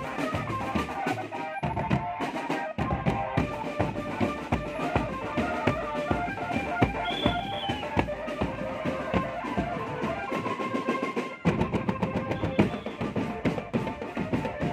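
Marching drum band playing: dense, fast snare and bass drum strokes under a melody on pitched instruments.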